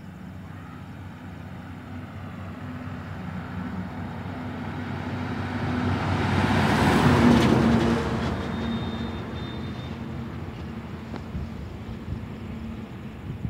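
A lorry passing close by. Its engine and tyres grow steadily louder to a peak about seven seconds in, then fade away.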